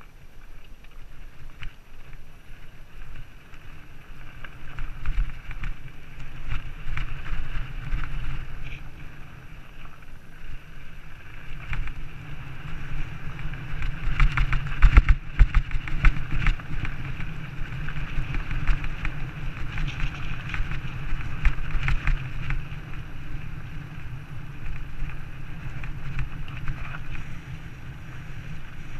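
Wind buffeting the microphone of a moving camera: a steady low rumble that swells and eases, with scattered clicks and rattles from travel over rough dirt.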